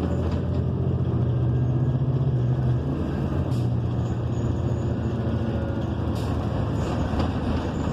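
New Flyer XN40 city bus with a Cummins Westport ISL G natural-gas engine, heard from inside the passenger cabin while under way: a low, steady engine drone over road rumble, dipping slightly in pitch about three seconds in.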